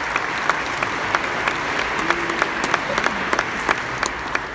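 Audience applauding, sharp single claps standing out above the steady general clapping, easing off slightly near the end.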